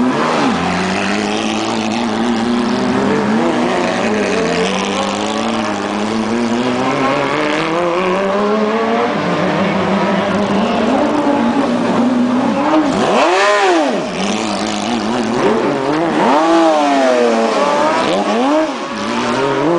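Porsche 997 GT3 Cup race cars' flat-six engines running at low speed through the paddock, the revs rising and falling unevenly. About two-thirds through come a sharp throttle blip and then a quick run of three or four more.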